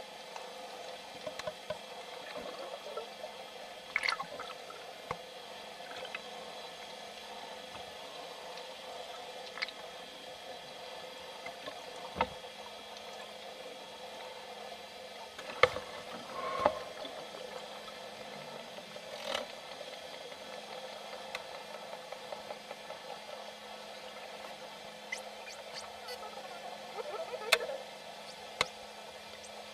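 Underwater sound around a pod of bottlenose dolphins: a steady watery hiss with scattered sharp clicks and a few short squeaks, the loudest clicks about halfway through and near the end.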